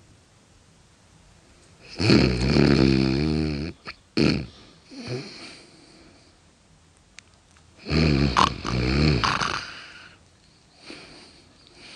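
Loud human snoring: two long, rasping snores about six seconds apart, with shorter, quieter breaths between them and near the end.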